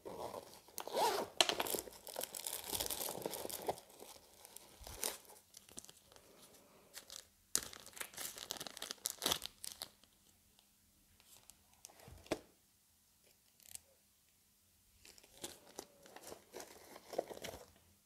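Crinkling and rustling of a small clear plastic bag and paper packaging being handled and opened, in two bursts, with a few light knocks in between.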